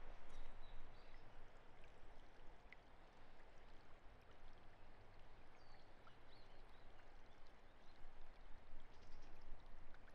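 Steady rush of flowing water, with faint high chirps now and then.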